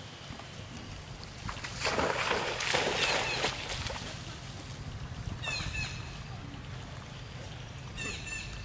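Monkeys splashing in shallow pond water, loudest from about two to three and a half seconds in. Short, high chirping calls come twice, about five and a half and eight seconds in.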